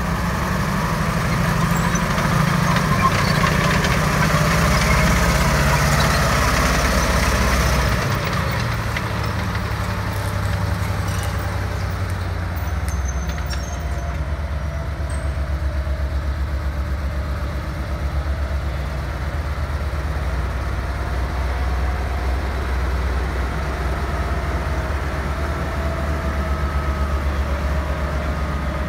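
M18 Hellcat tank destroyer's nine-cylinder radial engine running as the tank is driven. It runs harder for the first eight seconds or so, then settles to a lower, steady beat.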